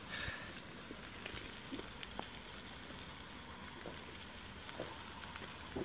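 Pork sizzling faintly on a grill pan over a portable butane stove, a steady crackle with scattered small pops.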